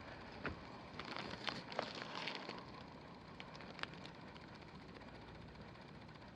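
Scattered light clicks and rustling of something being handled, for about four seconds, then only a steady faint hiss.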